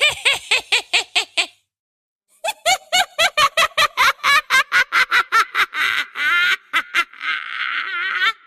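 High-pitched witch's cackle: a quick run of 'ha' pulses, a short pause, then a longer, faster run at about five a second, ending near the end in a drawn-out, wavering, raspy wheeze.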